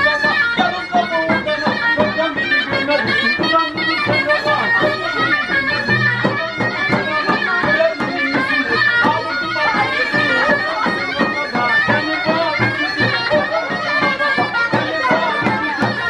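Live folk wedding dance music: a davul bass drum beating a steady rhythm under a reedy wind-instrument melody, without a break.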